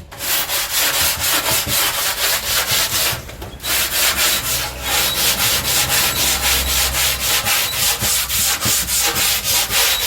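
Hand sanding of body filler on car bodywork: a sanding block rubbed back and forth in quick, even strokes, with a brief pause about three seconds in.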